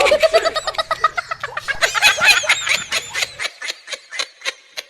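A person laughing hard in quick, repeated bursts that thin out near the end.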